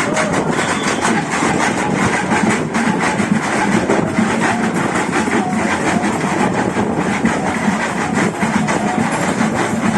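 Loud, steady din of a street procession: a dense, rapid clatter of knocks and beats over the noise of the crowd.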